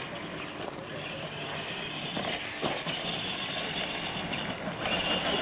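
R/C monster truck driving across dirt: a steady motor whine with a few knocks as it bounces over the ground.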